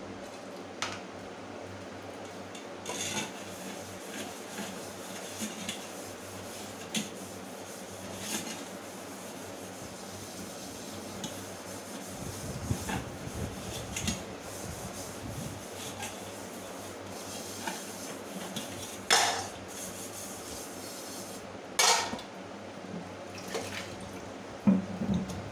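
Steel dishes being hand-washed at a stainless steel sink: a scrubber rubbing on steel bowls and pots, with scattered clinks of metal utensils. Two louder clanks of steel vessels being set down come a few seconds apart in the last third.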